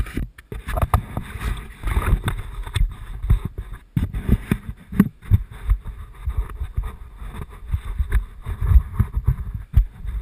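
Mountain bike riding down a rough forest trail, heard through a handlebar-mounted camera: a continuous clatter of thumps and knocks as the wheels hit bumps and roots, over the rush of tyres on leaf litter. It starts suddenly right at the beginning.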